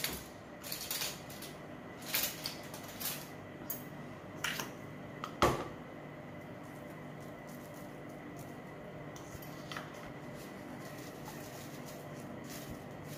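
A metal spoon scooping salt and clinking on a container and plate: a handful of short scrapes and clicks over the first five seconds, the loudest a sharp knock. After that only a faint steady hum with a single small tick.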